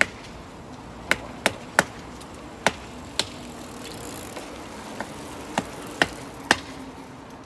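A magnet-fished metal find being tapped to knock debris off it: about ten sharp, hard taps at uneven intervals, several close together about a second in and more near the end.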